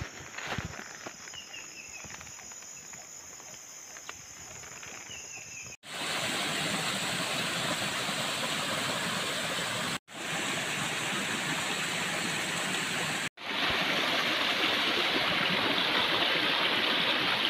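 Small rocky stream cascading down over boulders: a steady rush of falling water that comes in loud about six seconds in, after a quieter start, and cuts out for an instant twice more.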